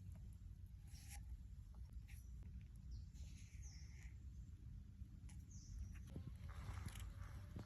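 Faint outdoor ambience: a steady low rumble with scattered light clicks and a few brief high chirps, one about three seconds in and another about five and a half seconds in.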